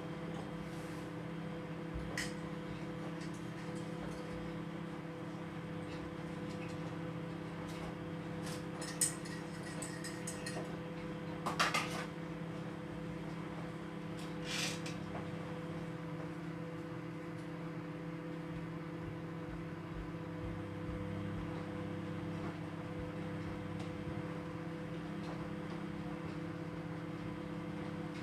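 Microwave oven running with a steady low hum while reheating leftover rice. A few short clicks and clinks come in the middle stretch.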